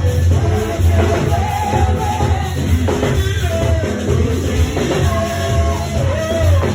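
Choir singing gospel music, accompanied by a drum kit and a heavy bass line.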